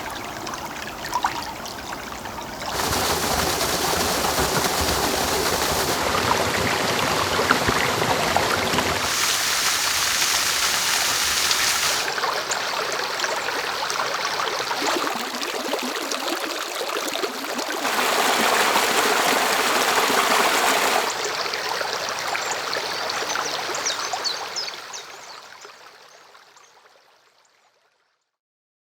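A run of short recordings of mountain streams and brooks, each a steady rush and trickle of flowing water, cutting from one to the next every few seconds. Some are bright and splashy, others deeper and fuller. The last one fades out near the end.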